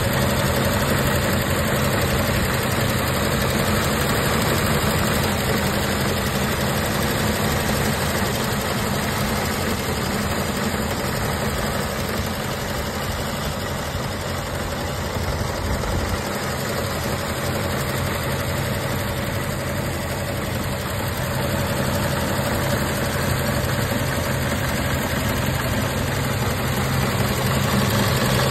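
1950 Chevrolet 3100 pickup's inline-six engine idling steadily, heard close up under the open hood.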